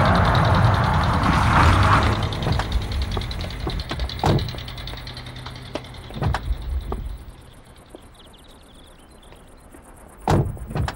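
A car pulling up, its engine running loudly and dying away over the first three seconds. A door handle clicks and a car door opens about six seconds in, and two thumps near the end sound like a car door being shut.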